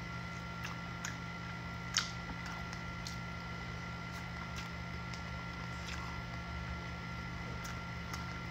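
Wet mouth sounds of someone chewing and sucking food off her fingers: scattered short lip smacks and clicks, the loudest about two seconds in, over a steady electrical hum.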